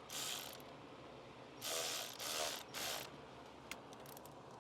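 Hand ratchet clicking in four quick strokes, about 1 s apart from the second stroke on, as it tightens the clamp on a car's upper radiator hose, followed by a few light ticks.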